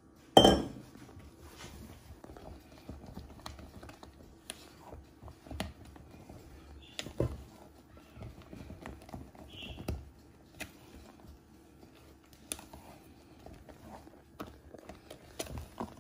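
Spatula scraping and clicking against a stainless steel mixing bowl while fruit coulis is folded into whipped cream, with one sharp knock on the bowl about half a second in.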